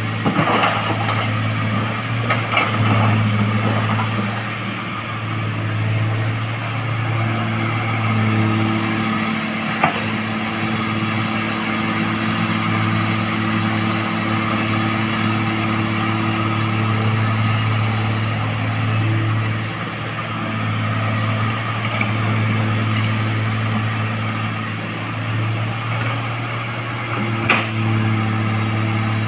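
Heavy-equipment diesel engine running steadily at constant speed, with two sharp knocks: one about ten seconds in and one near the end.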